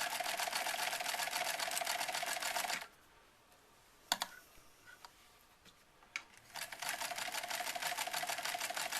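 Singer 306W swing-needle sewing machine sewing a zigzag stitch at speed: a motor whine with rapid, even needle strokes. It stops about three seconds in, with a couple of clicks in the pause, and starts sewing again about six and a half seconds in.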